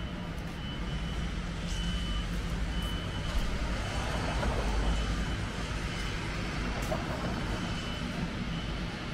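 Street traffic rumbling, swelling as a vehicle passes about halfway through, with a short high electronic beep repeating roughly once a second.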